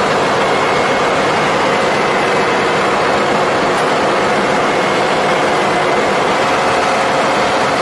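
Engine-room machinery of a VLCC crude oil tanker running steadily: a loud, unbroken mechanical din with a few steady tones held through it.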